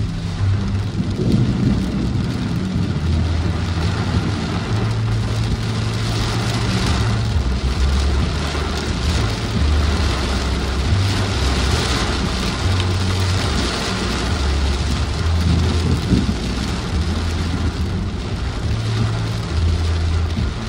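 Heavy rain beating on a car's roof and windshield, heard from inside the cabin of a moving car. A steady low rumble runs underneath, swelling and easing every second or two.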